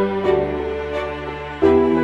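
Background music: slow sustained chords that change about a quarter second in and again near the end.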